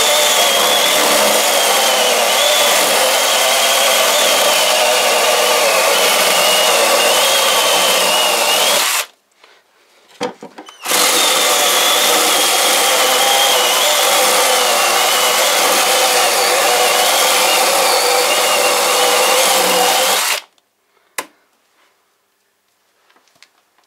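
Cordless mini chainsaw, fitted with a non-original replacement motor and a freshly hand-sharpened chain, cutting through a frozen, green walnut branch: steady motor and chain noise with a wavering high tone. It runs in two cuts, the first stopping about nine seconds in, the second starting again about two seconds later and stopping about twenty seconds in.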